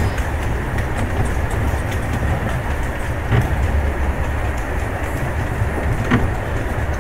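A ride-on miniature railway train running along its narrow-gauge track, heard from an open passenger wagon: a steady rumble of wheels on rails, with a couple of sharper clicks as it goes.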